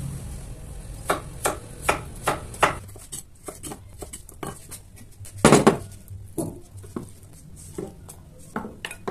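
Kitchen knife chopping a raw potato into cubes on a thick wooden cutting board: a string of sharp knocks, a few a second, with one heavier knock about halfway through, then lighter scattered taps.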